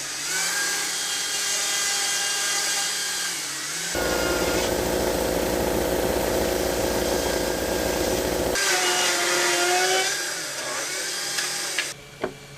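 Power tool running at high speed on wood carving, its pitch rising at the start; from about four seconds in it bites into the wood for about four and a half seconds, with a denser, heavier sound, then runs free again before stopping near the end.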